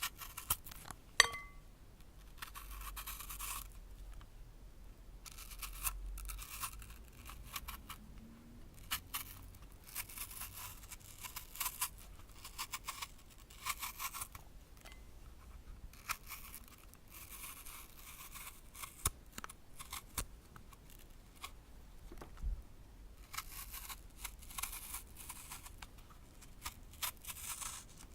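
Apple being peeled with a blade: repeated rasping strokes as the edge cuts the skin away from the flesh, in runs of one to two seconds with short pauses between them. A sharp click sounds about a second in.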